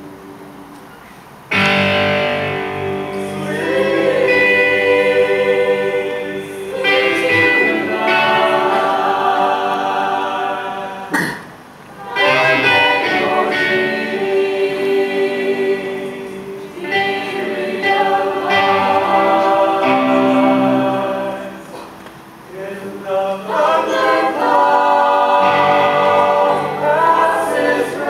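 A mixed school choir singing in phrases with short pauses between them. The full choir comes in about a second and a half in, after a quieter opening.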